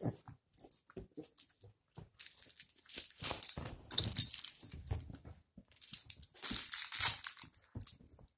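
Cavalier King Charles spaniel playing tug with a plush raccoon toy: three short, noisy bursts of dog play sounds and scuffling, about two, four and six seconds in.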